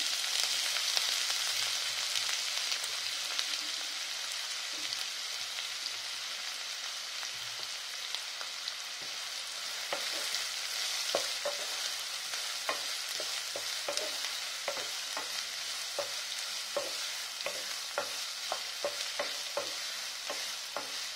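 Freshly added chopped onions sizzling in hot oil in a nonstick pan, the hiss easing a little over the first few seconds. From about ten seconds in, a wooden spatula stirs them, with frequent short knocks and scrapes against the pan.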